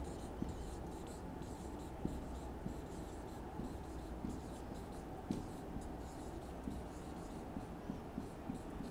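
Marker pen writing on a whiteboard: light scratching strokes with small ticks scattered through, over a steady low hum.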